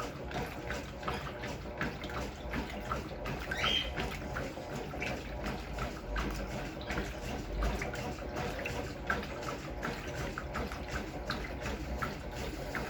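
Brastemp Clean 6 kg washing machine running, with water splashing and running in the drum over a low steady hum.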